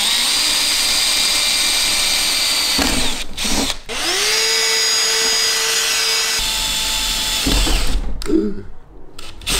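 A cordless drill with a metal bit runs steadily, pre-drilling holes through a van's metal roof. About four seconds in, a handheld cordless vacuum whines up to speed and runs steadily for about two seconds. The drilling then starts again with a heavier rumble.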